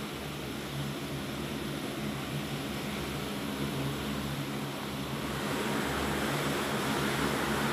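C-130 turboprop engines running with their propellers turning, a steady droning hum over a broad rushing hiss, growing a little louder in the second half.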